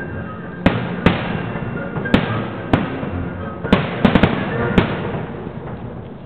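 Aerial firework shells bursting in a string of about nine sharp bangs at irregular intervals, several in quick succession about four seconds in.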